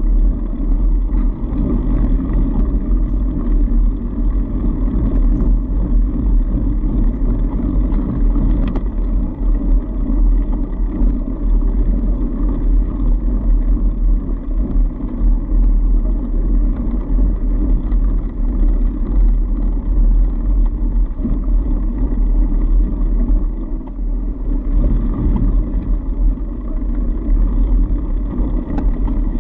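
Steady, low rumbling ride noise from a fat bike rolling over a packed-snow trail: tyre and drivetrain noise mixed with wind on the camera's microphone, continuous with no pauses.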